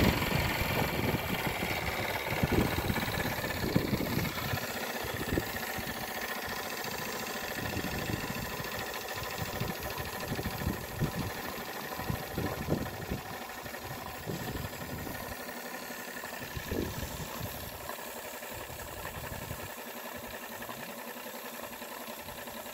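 Wilesco D21 live-steam model engine running, with a steady hiss that slowly grows quieter.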